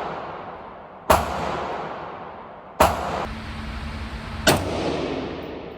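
Three gunshots from a Radical Firearms AR-15-style firearm, evenly spaced about a second and three quarters apart. Each crack is followed by a long echo that fades away.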